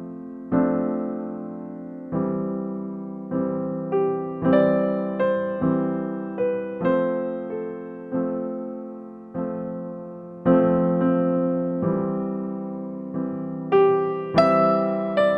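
Background music: slow, gentle solo piano, single notes and chords struck one after another and left to ring.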